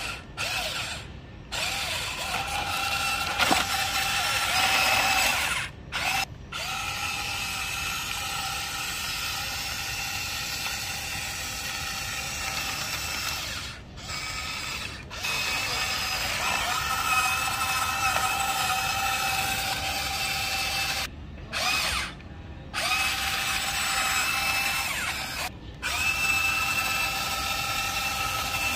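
Electric motors and gearboxes of a Huina RC excavator whining steadily as the arm, bucket and tracks move, with a gritty gear rattle. The whine stops and starts abruptly several times.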